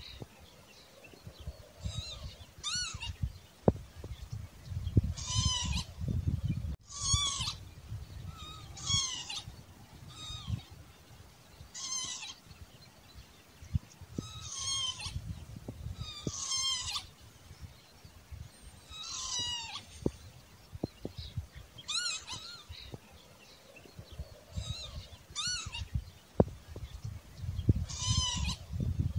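Northern lapwing calling: a short slurred call that rises and falls in pitch, repeated about every two to three seconds, over a low rumble.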